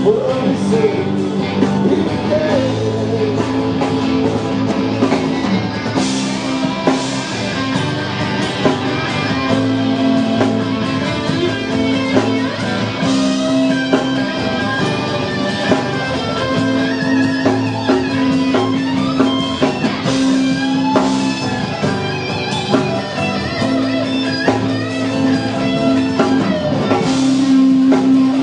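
Rock band playing live: electric guitar over drums, with long held notes and occasional cymbal crashes.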